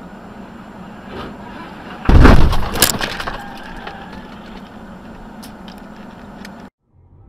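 Car crash heard through a dashcam: a sudden loud collision with breaking glass about two seconds in, a second sharp crack just after, dying away within about a second, then a few small clinks of debris, over the steady road noise of a moving car.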